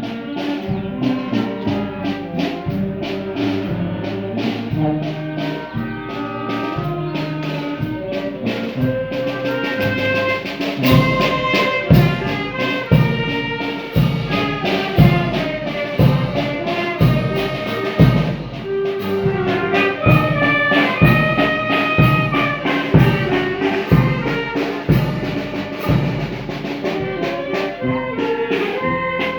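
Brass band music, trumpets and trombones playing a melody over a steady drum beat that grows stronger about ten seconds in.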